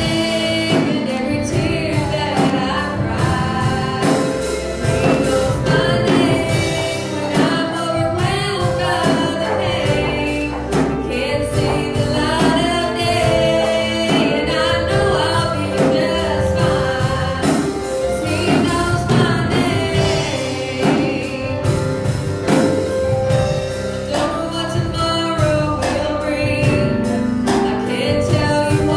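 Gospel song sung by a woman into a microphone over instrumental accompaniment with a steady beat, heard through a church PA.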